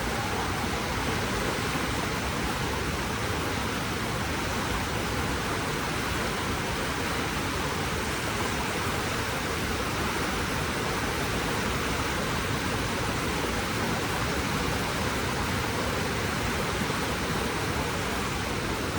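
Waterfall and river water rushing: a steady, even noise without pauses or changes.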